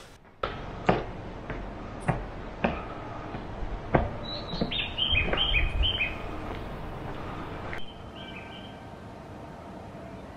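Footsteps climbing a staircase at an even pace, about two steps a second, fading as the walker reaches level ground. Over them, a short run of bird chirps stepping down in pitch, with fainter chirping near the end.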